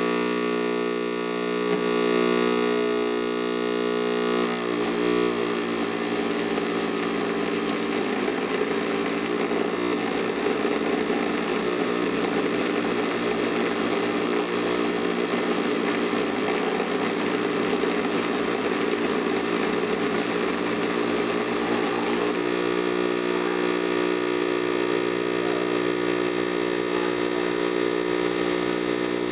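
Electronic glitch buzzing from two hacked, circuit-bent units played together by bridging them through the player's body: a steady, buzzy drone of many stacked tones. About five seconds in it turns rougher and noisier, and a little after twenty seconds it settles back into the steady buzz.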